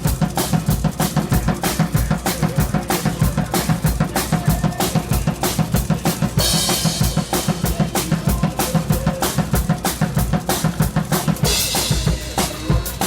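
Four-armed robot drummer playing an acoustic drum kit in a fast heavy metal beat, with dense kick and snare hits. A cymbal crash washes over the beat about six seconds in and again near the end.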